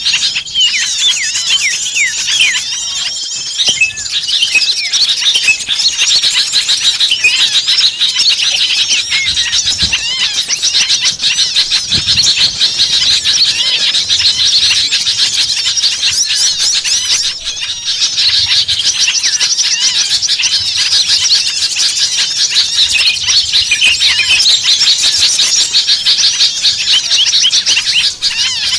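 A dense chorus of many small songbirds chirping and calling at once in rapid, overlapping high-pitched notes and squeals: a noisy agitated flock of the kind used as a lure recording to draw small birds in.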